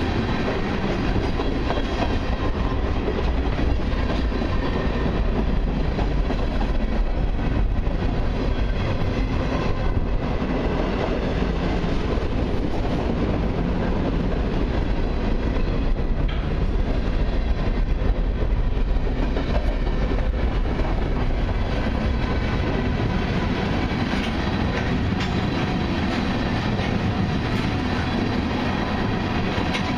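Freight cars of a long mixed train, mostly tank cars with covered hoppers and an autorack, rolling slowly past, their steel wheels rumbling steadily on the rails.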